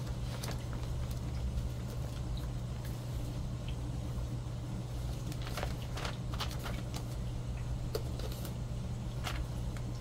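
Paper being handled: scattered rustles and soft ticks as notebook pages are turned and a small paper packet is picked up, busiest in the second half. A steady low hum runs underneath.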